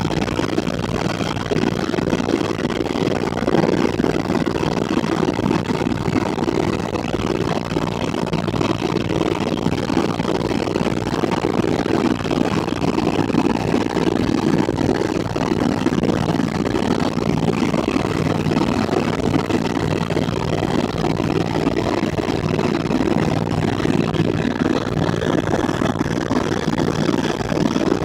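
Helicopter turbine and rotor noise, a loud steady drone with a low hum that stays unchanged throughout.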